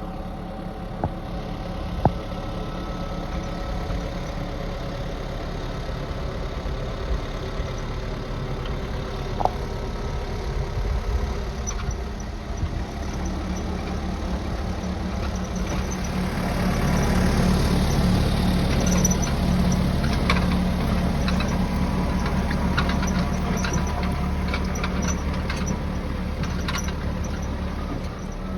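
Tractor engine running steadily while ploughing. It grows louder about halfway through, with a couple of sharp clicks before that.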